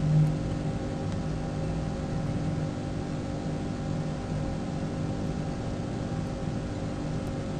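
A steady mechanical hum of several held tones over a low rumble, with a brief swell right at the start.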